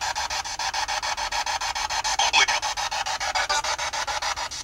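Spirit box radio sweeping through stations: static chopped into rapid, even bursts, about seven a second, with a brief snatch of a broadcast about two seconds in.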